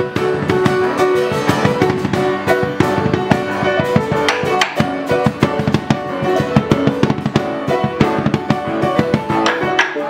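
A band playing an instrumental passage: upright piano and strummed acoustic guitar under a busy beat of quick drum hits on a cloth-covered drum.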